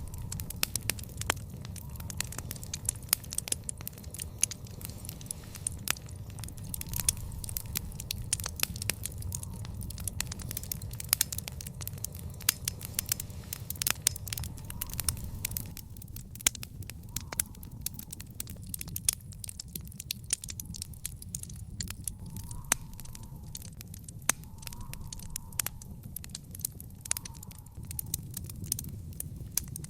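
Wood fire in a fire pit crackling steadily, with frequent sharp pops and snaps over a low, even rumble of burning.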